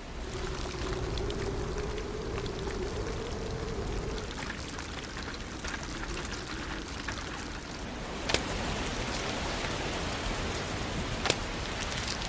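Rainforest downpour: a steady hiss of heavy rain on foliage with individual drops, growing heavier about eight seconds in, with two sharp cracks near the end.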